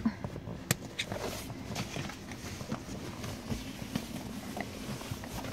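Plastic side-release buckles on a pet hammock's straps being unsnapped: one sharp click under a second in, then a few quieter clicks amid rustling of the fabric cover being handled.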